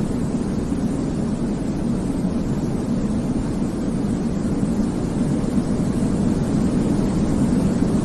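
Steady sleep-aid white noise, weighted toward the low end: an even, deep rushing hiss that does not change.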